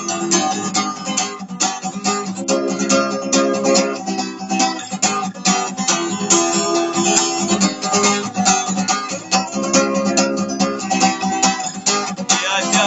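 Acoustic guitar strummed in a steady rhythm, playing an instrumental break between sung verses.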